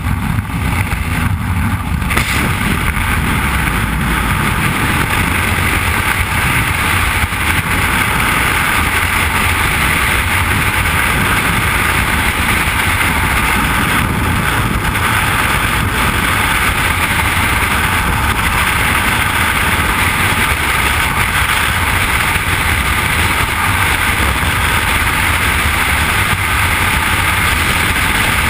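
Loud, steady rush of freefall wind buffeting a helmet camera's microphone during a skydive. The noise at the open aircraft door changes about two seconds in, as the jumpers leave the plane, into an unbroken wind roar.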